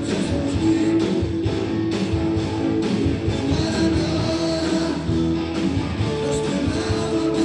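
Blues-rock band playing live in an instrumental passage without vocals: a guitar holding and bending sustained notes over bass and a steady drum beat.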